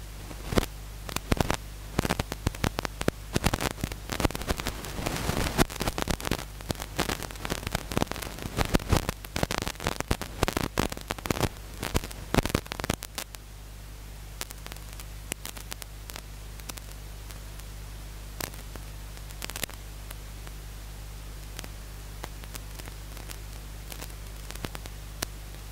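Crackling static over a steady low electrical hum: dense clicks and crackles for about the first half, thinning to occasional clicks later.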